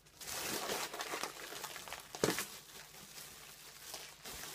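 Foil helium balloons crinkling and rustling as they are handled and squeezed to the mouth, with one louder crackle about two seconds in.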